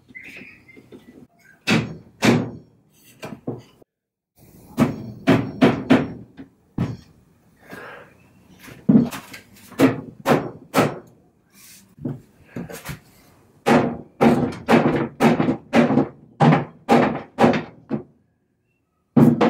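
Loose joints of an antique wooden dining chair being knocked apart with a rubber mallet: many sharp wooden thunks, in quick runs of several blows with short pauses, the fastest run near the end.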